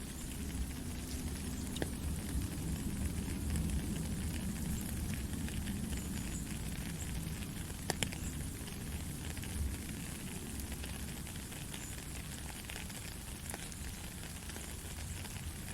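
Steady rain with a dense, fine patter and a low rumble underneath. A few louder single drops click out, the sharpest about eight seconds in.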